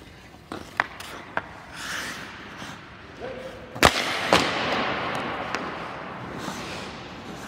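Ice hockey shot: skate blades scraping the ice and a few light stick taps, then a sharp, loud crack of the stick hitting the puck just before four seconds in, and a second knock about half a second later as the puck reaches the goal.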